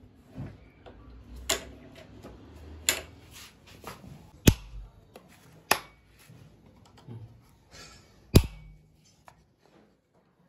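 Sharp clicks and knocks from a patient transfer chair's locking caster wheels, as the brake pedals are pressed down and released; the two loudest knocks come about four and a half and eight seconds in.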